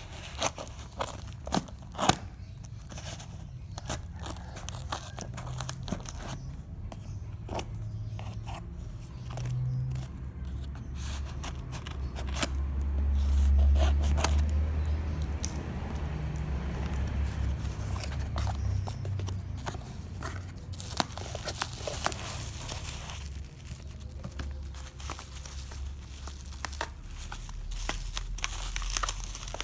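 A parcel's packaging being torn and unwrapped by hand: tape and plastic tearing, wrapping crinkling and crumpling, with many small clicks and crackles, and a low handling rumble through the middle.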